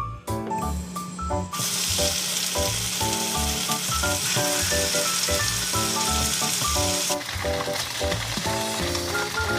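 Tofu frying in oil in a pan, a loud steady sizzle that starts about a second and a half in and drops back near the end, over light background music with piano-like notes.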